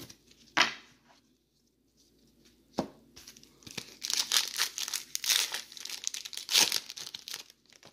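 Plastic wrapper of a 2018 WWE Women's Division trading-card pack being torn open and crinkled by hand: two short handling clicks, then a dense crackle of tearing and crumpling from about four seconds in until near the end.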